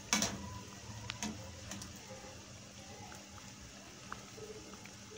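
Besan pakoras deep-frying in hot oil in a wok, a steady sizzle with a few sharp pops, and a brief louder burst right at the start.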